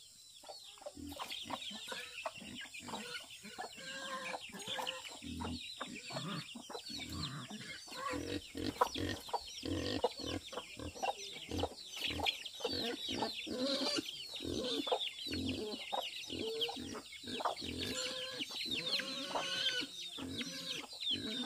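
Chickens clucking and calling continuously, many short high falling calls over lower clucks, growing louder over the first few seconds.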